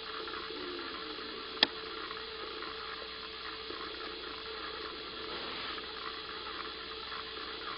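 Steady background hiss with a faint hum, broken by a single sharp click about a second and a half in.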